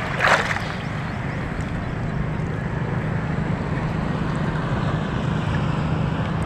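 Steady low hum of a boat motor running, over wind and water noise on the microphone, with a brief rustle or splash about a quarter second in.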